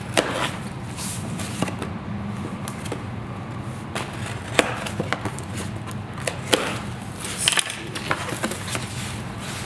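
A mailed package being opened and unpacked by hand: scattered knocks, clicks and short scrapes, the sharpest knock about halfway through and a quick cluster of them near the end.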